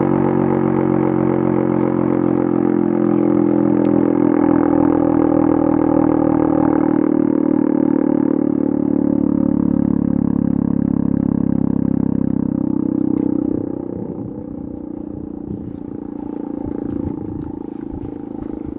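Federal Signal Model 7 outdoor warning siren, its rotor spun by an electric drill at about 2,500 RPM (well below its rated 3,400 RPM), sounding a loud steady tone. About 13 seconds in the sound drops in level and turns rough as the rotor winds down.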